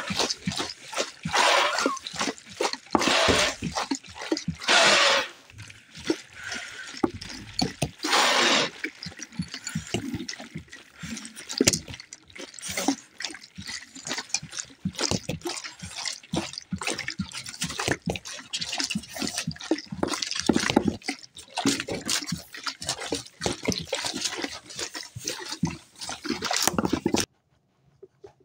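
Home-made soundscape of a stormy sea performed by schoolchildren: a dense stream of clicks, splashes and dripping water sounds, with a few long loud hissing whooshes like waves in the first nine seconds. It cuts off suddenly shortly before the end.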